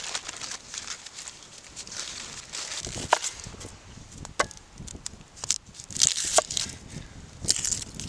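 Paper wrapping crinkling as minced meat is shaken out of it into a steel bowl, then a knife working an onion on a wooden chopping board: about four sharp knocks of the blade on the board, spaced roughly a second apart, and the crackle of dry onion skin being peeled.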